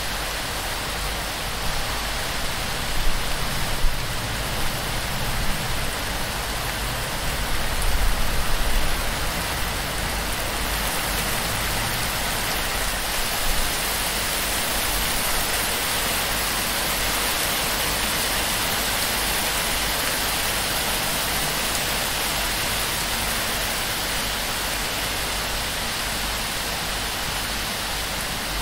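Heavy torrential rain drumming on a palm-frond thatch roof and pouring off its edge, a steady dense hiss. A few short, louder low rumbles come in the first half.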